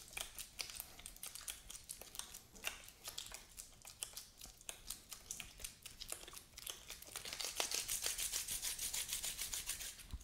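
Disposable gloves rubbing and crinkling as hands roll and knead a lump of two-part epoxy sculpting putty, in short uneven strokes. About seven seconds in, the strokes turn quicker and rhythmic.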